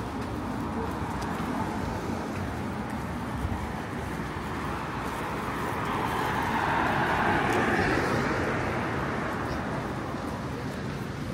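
City street traffic: a steady hum of passing vehicles, with one vehicle going by close and swelling louder for a few seconds past the middle.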